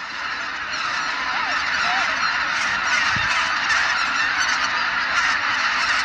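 A large flock of waterfowl calling at once: a dense, continuous chorus of many overlapping cries that builds up over the first second and then holds steady.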